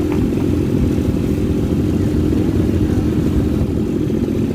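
ATV engine running steadily, a dense low rumble with no change in speed.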